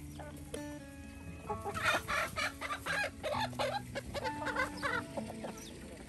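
Chickens clucking in several quick bursts of short calls.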